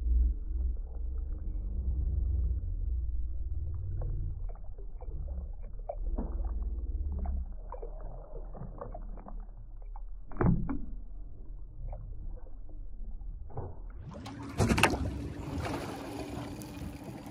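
Dull, muffled water sloshing and gurgling with scattered small clicks and a low rumble, and a louder knock about ten seconds in. Near the end it gives way to clearer boat-side noise of wind and water, with a thump.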